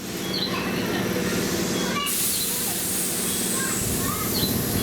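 Electric commuter train at a station platform, a steady hum over a haze of noise, with a high hiss that comes in suddenly about two seconds in.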